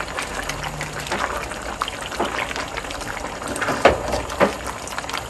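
Thick tomato stew simmering and bubbling in an enamelled cast-iron pot as a silicone spatula stirs shrimp and okra through it, with wet squelches and a couple of sharper knocks near the end.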